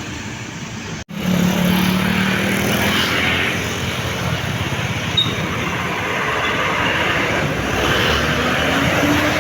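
Heavy vehicle noise at a railway crossing: a brief cut about a second in, then a low steady engine tone for a second or so under continuing traffic noise.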